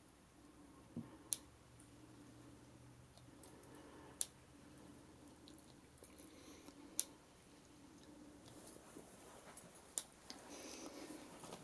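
Quiet room tone with a faint low hum, broken by four sharp, short clicks evenly spaced about three seconds apart.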